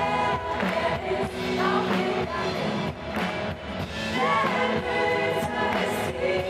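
Live band playing a Christian praise-and-worship song, with a woman singing the lead into a microphone.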